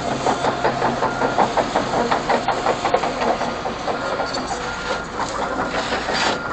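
Diesel engine of heavy earthmoving equipment running steadily, with a fast, even clatter.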